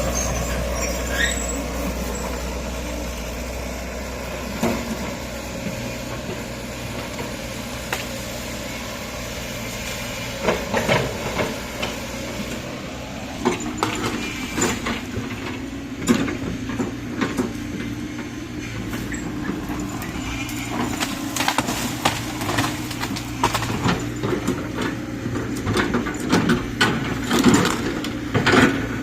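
Excavator engine running steadily, with scattered knocks and clanks of the machine at work starting about ten seconds in and coming more often near the end.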